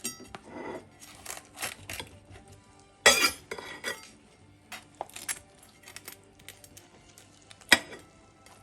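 A metal knife clinking and scraping against a dish in a run of irregular clatters, loudest about three seconds in and again near the end.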